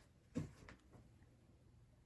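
A single dull thump about half a second in, followed by two faint clicks; otherwise near silence.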